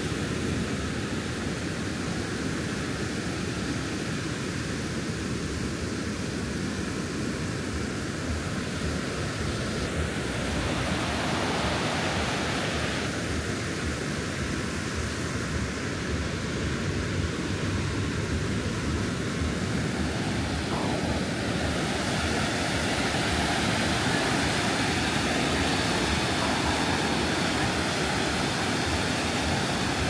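Ocean surf washing on a beach, a steady noisy hiss with no distinct breaks that grows a little louder about ten seconds in.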